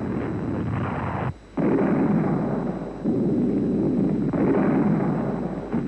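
Artillery shell explosions on an old newsreel soundtrack: rumbling blasts with a brief break about a second and a half in, then fresh blasts about three and four and a half seconds in, each running on into a long rumble.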